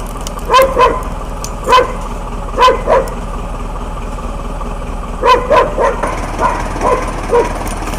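A dog barking repeatedly: about a dozen short barks in pairs and runs, over a steady machine hum.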